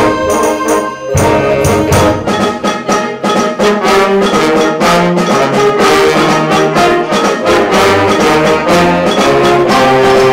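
Symphonic wind band playing: brass and woodwinds in sustained chords over regular percussion strikes.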